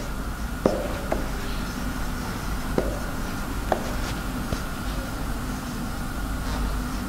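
Marker pen writing on a whiteboard: scattered short squeaks and taps of the felt tip as words are written, over a steady background hum.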